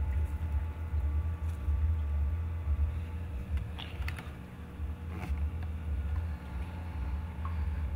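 Steady low hum of a Dominaero fogponics unit running, its ultrasonic fogger making nutrient fog, with a few light clicks and knocks of handling about four and five seconds in.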